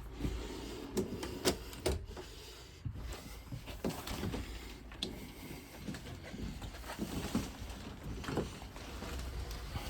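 Faint, irregular clicks and light knocks of handling and movement, over a low steady hum.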